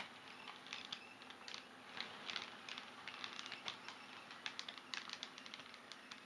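OO gauge model of a Class 375 Electrostar running slowly, its wheels giving faint, irregular clicks and ticks over the rail joints and pointwork.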